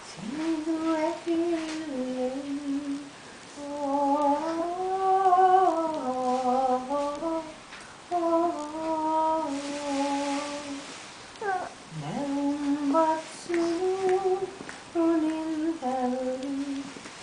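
A woman's solo voice singing a slow, unaccompanied melody into a microphone, in phrases separated by short pauses for breath.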